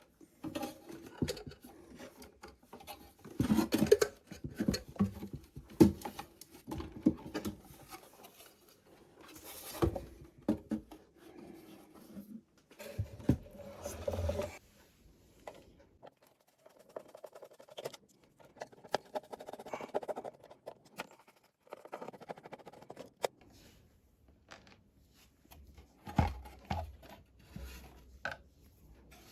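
Irregular clicks, taps and scrapes of a guitar amplifier's chassis, panels and circuit boards being handled and taken apart by hand, in several busy stretches.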